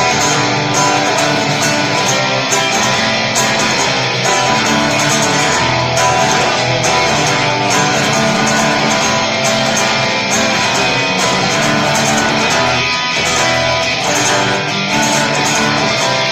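Guitars strumming an instrumental passage of a live rock song, with no singing.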